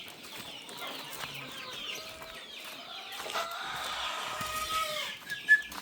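Flock of Boschveld chickens clucking and calling, many short overlapping calls at once, with a brief high chirp near the end.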